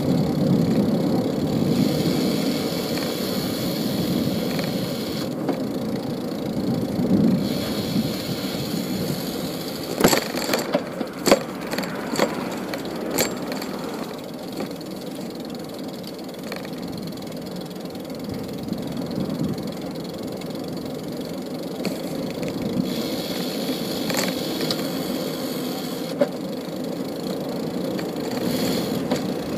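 Steady city street traffic noise heard from a moving bicycle, with a cluster of sharp rattles and knocks about ten to thirteen seconds in.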